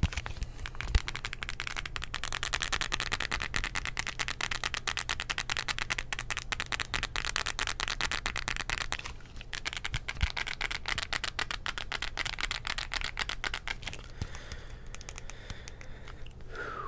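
Plastic buttons on a TV remote control being pressed rapidly, many clicks a second in a dense stream. The clicking breaks off briefly a little past halfway and turns softer near the end.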